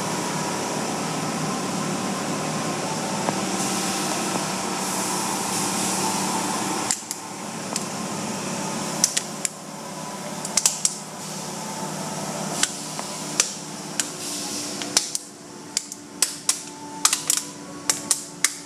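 Automatic car wash heard from inside the car: a steady rush of spray and machinery that drops away about seven seconds in. Scattered sharp taps and knocks on the car's body follow, coming faster near the end.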